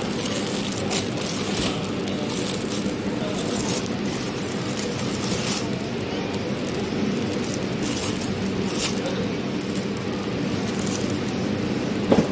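Warehouse supermarket background: a steady mechanical hum with several short rustles or clicks.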